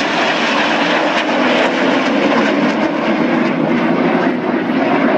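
Jet noise from five BAE Hawk T1 jets flying past in close formation, loud and steady, its lower part swelling about halfway through.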